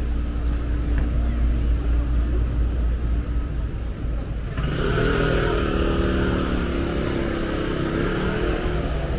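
Street traffic: a steady low rumble, with a motor vehicle's engine coming in loudly about halfway through and running on to the end.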